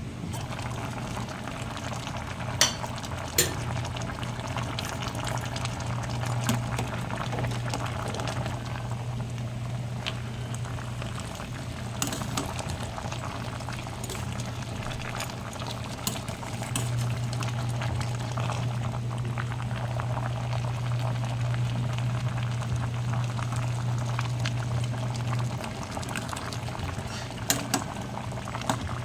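A pot of kare-kare stew boiling and bubbling on the stove, over a steady low hum that grows louder for several seconds past the middle. A few sharp clinks sound near the start, midway and near the end.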